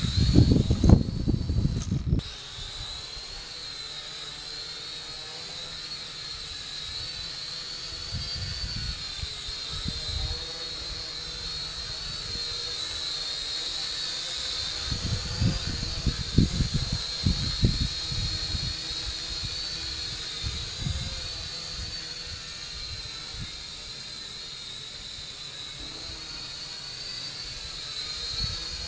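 Syma X5C quadcopter's small motors whining steadily at a high pitch that wavers up and down with the throttle. Strong wind gusts buffet the microphone in the first two seconds and again around the middle.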